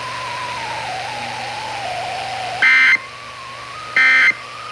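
Emergency Alert System SAME end-of-message data bursts: two short, loud, buzzy digital tone bursts about a second and a half apart. A thin whistle slowly wavers in pitch underneath them.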